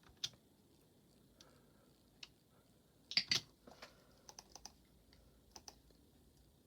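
A few faint, scattered clicks and taps at an uneven pace, the loudest a quick pair about three seconds in, with a short cluster a little after four seconds.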